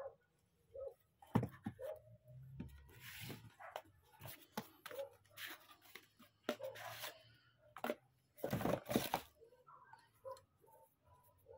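Cardboard packaging and a cloth drawstring pouch being handled: an irregular run of rustles and scrapes, the longest and loudest about nine seconds in.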